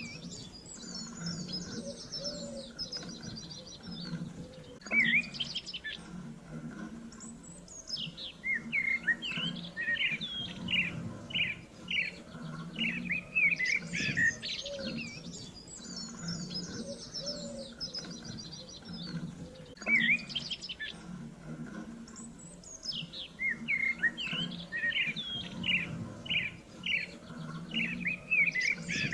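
Several songbirds chirping and twittering: quick trills and short rising and falling chirps, over a steady low background sound. The same stretch of recording repeats about every fourteen and a half seconds, as a loop.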